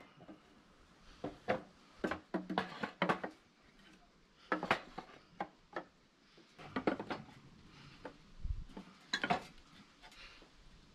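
Irregular wooden knocks and clatters as timber boards and a claw hammer are handled on a wooden frame, with a few sharper clinks of the hammer against the wood.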